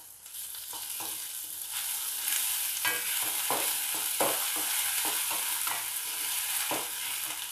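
Chopped onions and ginger-garlic paste sizzling in hot oil in a kadai, with a steady hiss, while a spatula stirs them, scraping the pan in short repeated strokes. The ginger-garlic paste is being sautéed into the softened onions.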